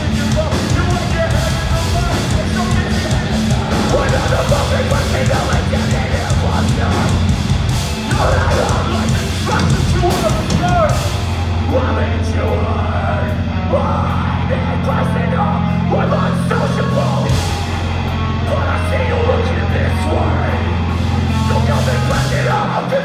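Live metalcore band playing loud: distorted guitars, bass and drums, with a vocalist singing and screaming over them. About halfway through, the top end thins out and a low, held bass chord takes over.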